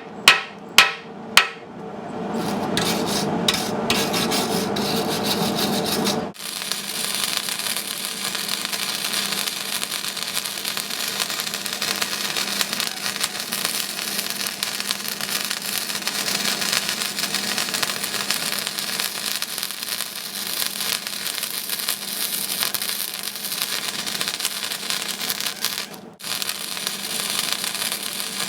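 Three hammer knocks near the start. Then, from about six seconds in, the steady crackle of a flux-core wire-feed (MIG) welding arc laying a bead, broken off briefly near the end.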